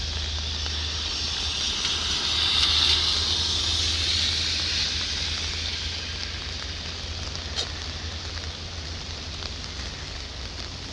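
Steady hiss of rain falling on a wet street. A swell of wet-tyre hiss from a vehicle passing on the road rises and fades about two to five seconds in. A single sharp tick comes a little after the middle.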